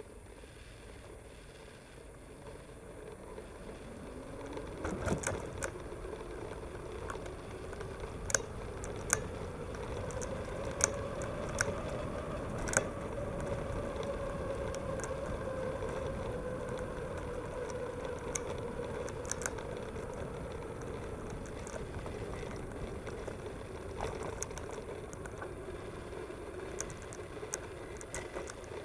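Mountain bike rolling along a paved path: a tyre hum that rises in pitch as the bike picks up speed, then slowly drops as it slows. Sharp clicks and rattles come from the bike and its camera mount jolting over bumps, most of them in the first half.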